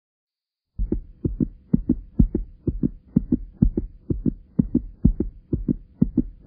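A fast, even thumping beat of paired low thumps, like a heartbeat, about two pairs a second over a faint steady hum, starting abruptly about a second in.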